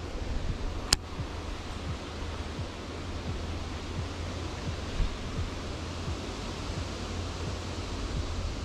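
Steady wind rumbling on the microphone over a faint hiss, with one sharp click about a second in and a dull thump near the middle.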